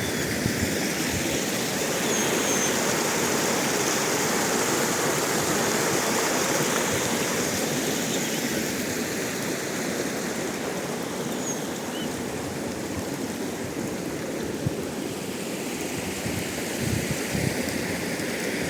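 Stream water running and splashing over its bed in a steady rush.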